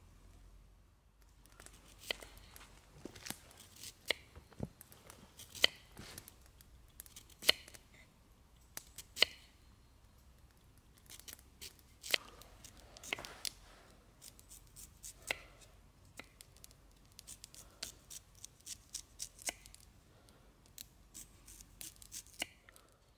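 A knife slicing raw potato into strips: an irregular series of crisp cuts, at times in quick runs of several a second, with the occasional short scrape.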